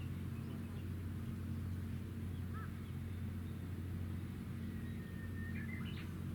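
Steady low hum of the helicopter destroyer JS Kaga's engines. A few short bird chirps come through about two and a half seconds in, and a thin whistle with chirps comes near the end.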